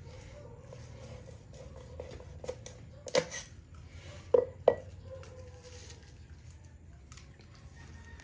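Large kitchen knife cutting through a whole milkfish on a wet wooden chopping board, with scattered small clicks and three sharp knocks of the blade on the board about halfway through.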